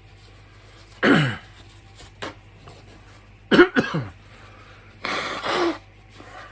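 A person coughing and clearing their throat in three bouts, the middle one a loud double cough, as the throat burns from a superhot pepper and chunks of it stick in the throat.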